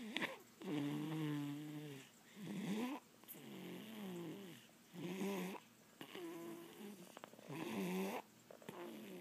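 A baby snoring: about seven noisy, pitched breaths, one every second or so, each with a wavering tone.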